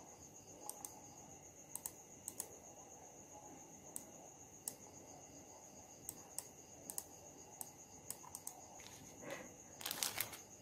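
Faint, irregular clicks of a computer mouse over a steady high-pitched tone, with a louder cluster of clicks near the end.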